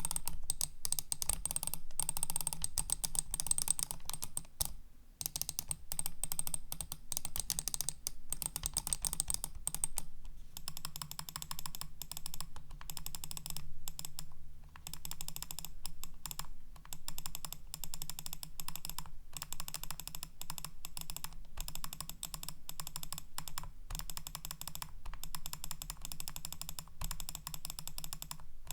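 Logitech B100 computer mouse making rapid, continuous plastic clicks, with a change in the character of the clicking about ten seconds in.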